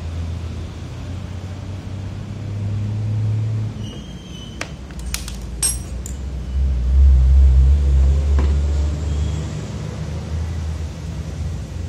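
Low rumble of passing road traffic, swelling loudest about seven seconds in, with a few sharp clicks and clinks about five seconds in.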